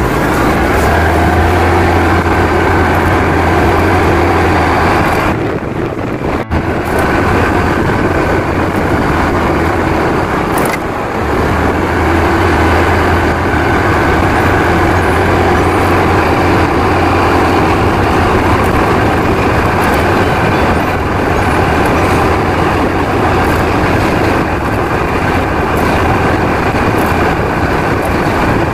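Small motorcycle engine running steadily and wind rushing past while riding, with the engine sound dipping briefly about six seconds in and again around eleven seconds.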